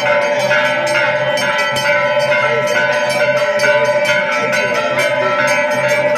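Temple bells ringing rapidly and without pause for aarti, several strikes a second over a steady ringing tone.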